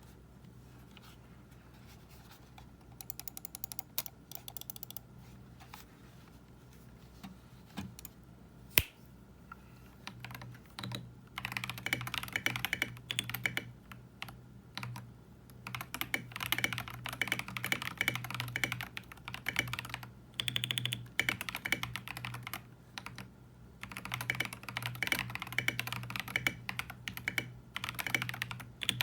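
Monka 3075 Pro mechanical keyboard with XY.Studio Hutt switches being typed on. A few scattered keystrokes and one sharp louder key hit come first, then fast continuous typing with a couple of short breaks.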